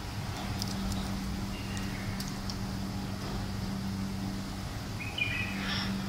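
African grey parrot's beak picking at a nut shell, a few faint clicks, with a short chirp about five seconds in, over a steady low background hum.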